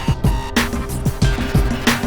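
Background music with a steady beat, bass drum and snare.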